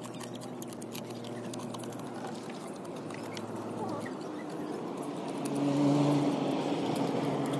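A motor vehicle's engine running nearby, its pitch stepping a few times and growing louder to a peak about six seconds in, over light clicks and crunches of crab shells being broken apart by hand.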